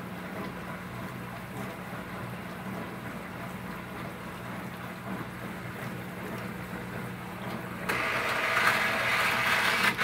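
Small countertop dishwasher running a wash: its submersible magnetic-impeller pump hums steadily under the swish of water spraying inside the tub. About eight seconds in, a louder hiss of spray sets in and carries on.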